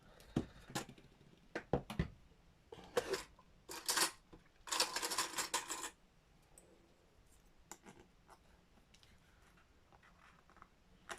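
Small hard objects and paper being handled on a craft desk: a few sharp clicks and clinks, short rustles, then about a second of continuous rustling, and faint ticks after it.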